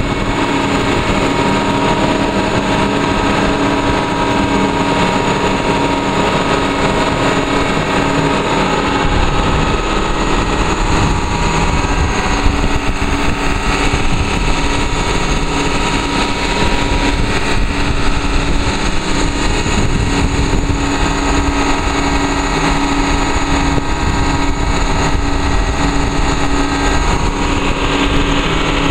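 Sea tractor's engine running steadily, a constant hum under a loud rushing noise of surf and spray around the vehicle. The low rushing grows heavier about nine seconds in.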